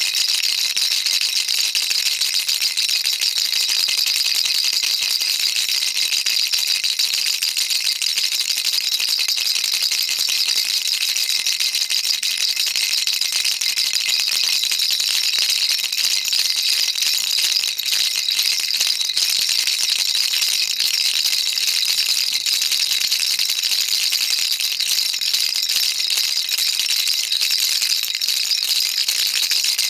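Baby rattle shaken continuously: a steady, dense, high-pitched rattling with no pauses.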